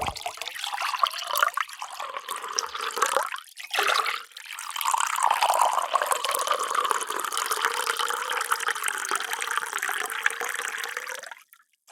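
Water being poured into a container: a steady splashing pour that breaks off briefly twice about three and a half to four seconds in, then runs on and stops sharply shortly before the end.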